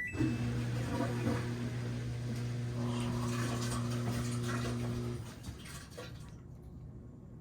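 Samsung FlexWash washing machine starting its cycle: water rushes in with a steady electric hum, which stops about five seconds in.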